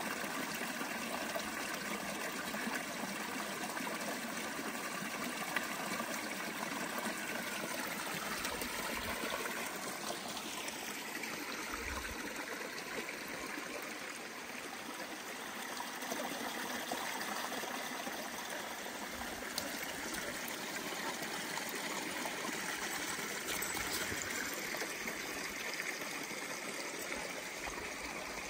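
Small, shallow rocky creek trickling steadily over stones.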